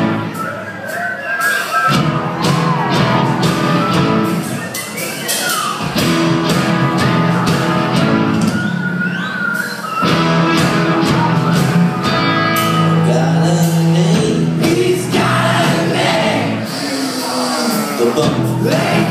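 Live rock band playing loudly, with electric guitars over a steady drum beat, heard from high up in a large concert hall.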